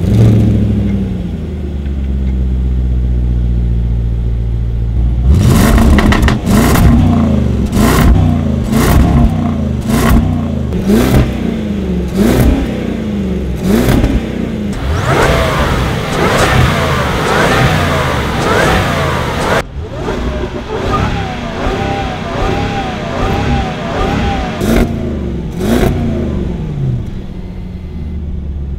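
A supercharged 5.0-litre V8 in a Land Rover Defender fires up and settles into idle, heard at the exhaust. It is then revved again and again, the pitch rising and falling with each blip and sharp cracks in between. Near the end the car pulls away.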